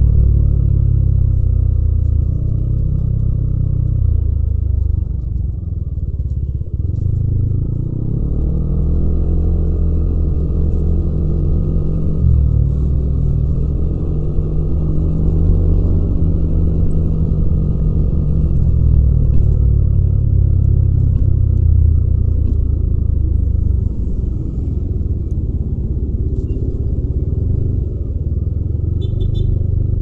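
Yamaha Aerox 155 scooter's single-cylinder four-stroke engine running steadily under light throttle at low city speed, a continuous low drone that dips and swells slightly with the throttle.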